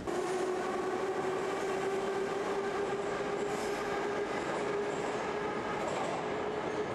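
Moscow Metro train running along a station platform: a steady rumble of wheels and carriages with a steady motor whine.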